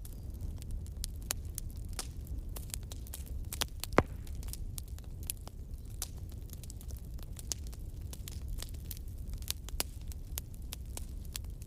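Bonfire crackling: a steady low rumble of burning with irregular sharp pops and snaps, and one louder pop about four seconds in.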